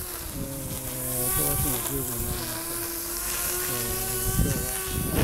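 Small engine of a brush cutter running steadily, its pitch dipping briefly twice.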